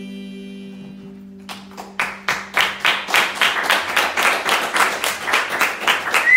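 The song's last chord ringing out and fading, then a few people clapping from about a second and a half in, with a short whistle near the end.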